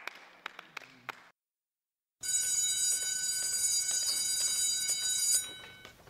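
Hands clapping briefly, then after a second of silence an electric school bell rings steadily for about three seconds and fades out.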